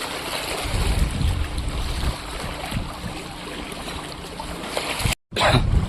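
Strong gusty wind buffeting the microphone over choppy river water, with waves washing and splashing. The sound cuts out briefly near the end.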